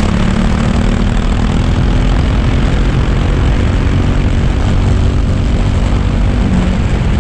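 Racing kart's small engine running steadily at speed, with wind rush on the kart-mounted camera.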